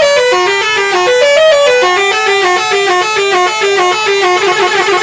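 Bus's Basuri telolet horn playing a quick melody of short stepped notes; about four seconds in it shifts to a held low note with a fast fluttering pattern above it.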